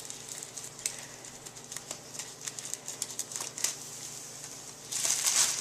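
Plastic bread bag being handled, with scattered small crackles and clicks, then crinkling more loudly and steadily from about five seconds in as it is opened for the white bread.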